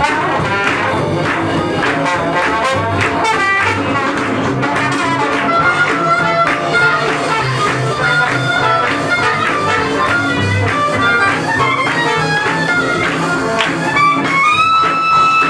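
Live swing jazz band playing up-tempo with brass to the fore, trumpet and trombone among the horns. Near the end a horn holds one long note.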